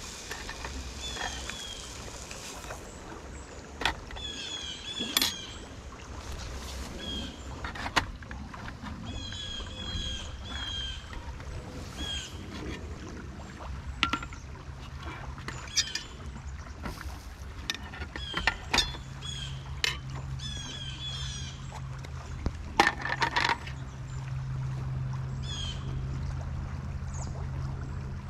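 Fork and spatula clinking and knocking against a frying pan and an enamel plate in separate sharp strikes, loudest in a quick cluster near the end, over the steady rush of a river. Small birds chirp over and over in the background.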